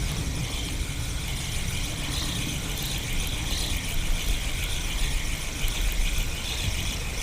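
Outdoor ambience: a steady low rumble of wind on the microphone under a constant high hiss that pulses faintly.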